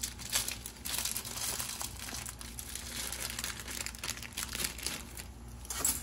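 Pot of water heating just short of the boil: a steady fine crackling from the small bubbles forming on the bottom of the pot. Near the end there is a brief louder sound as dry spaghetti is lowered into the water.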